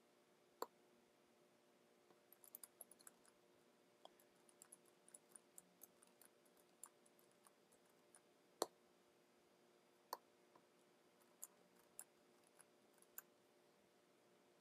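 Faint, scattered clicks of a computer keyboard and mouse while lines of code are pasted in: a quick run of keystrokes about two seconds in, then single sharper clicks every second or two.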